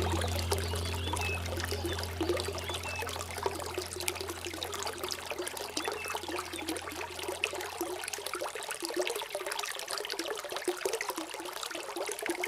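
Water trickling and splashing steadily, like a small stream, under a low steady drone that fades out over the first eight seconds or so. A few faint, short, high chirps sound in the first half.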